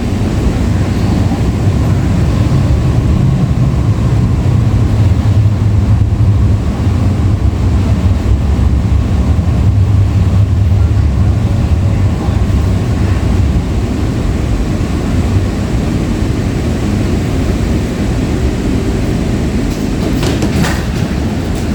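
Breda LRV3 light rail car running along the track, heard from on board: a steady low rumble, with a few sharp clicks near the end.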